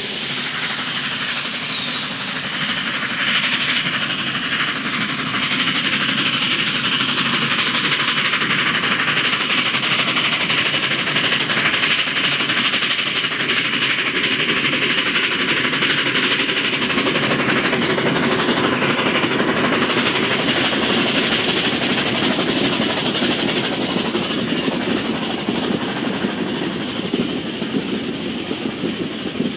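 NG/G16 Garratt narrow-gauge steam locomotive working a freight train past, its exhaust and steam hiss building over the first few seconds. From about halfway through, the rumble and clickety-clack of the wagons rolling by take over.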